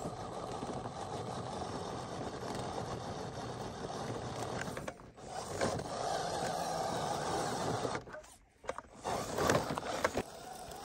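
Electric motor and gearbox of an RC rock crawler whining as it drives over rocks, dropping out briefly twice and picking up again near the end.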